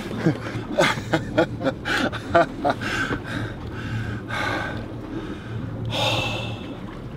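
A swimmer breathing hard with gasps as he catches his breath, over scattered knocks and clatter and a low steady hum.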